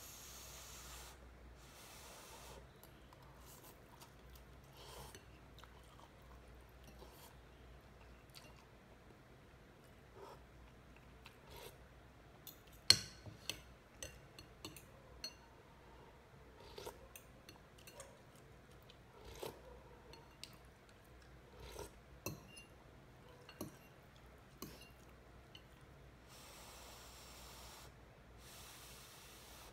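Slurping noodles at the start and again near the end, with chewing and small clinks of a metal fork and spoon against a ceramic bowl between. One sharp clink against the bowl about halfway through is the loudest sound.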